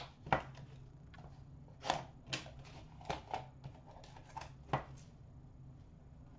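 A small taped cardboard box being pried and torn open by hand: irregular crackles, scrapes and snaps of tape and cardboard, with about six sharper ones.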